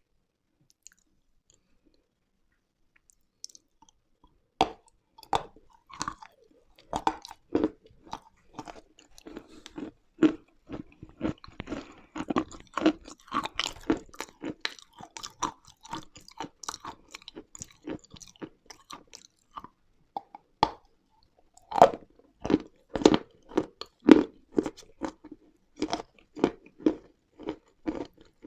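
A person biting into and chewing crunchy, dry chalk and clay pieces close to the microphone. The crackling bites start about four seconds in and go on irregularly, with a short pause near the end and some of the loudest crunches after it.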